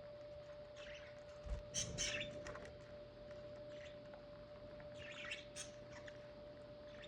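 Pet budgerigars giving short, high chirps and squawks in two brief clusters, over a faint steady hum.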